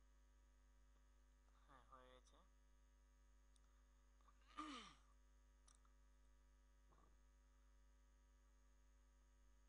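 Near silence over a steady faint electrical hum. A person's voice sounds briefly twice, about two seconds in and again near the middle, the second time falling in pitch like a sigh, with a few faint clicks.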